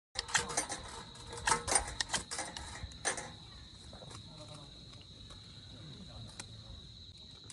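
Crickets chirring in a steady high-pitched trill, with a flurry of sharp clicks and cracks over the first three seconds that then die away.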